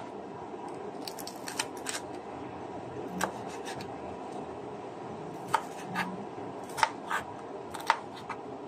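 Kitchen knife slicing through ham on a bamboo cutting board, the blade knocking the board in irregular sharp taps: a quick cluster about a second in, then single knocks through the second half.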